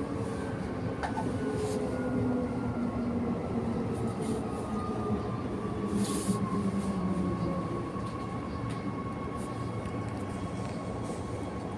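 Transperth B-series electric multiple unit heard from inside the carriage: steady running rumble with a motor whine that slowly falls in pitch as the train slows. A short hiss about six seconds in.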